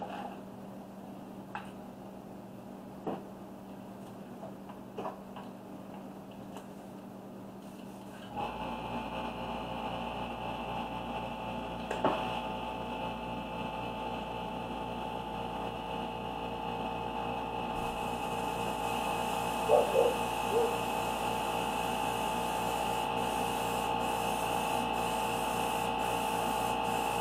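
A few faint handling clicks. Then, about eight seconds in, an air compressor starts with a steady hum and hiss and keeps running, while the airbrush sprays paint onto the masked tumbler.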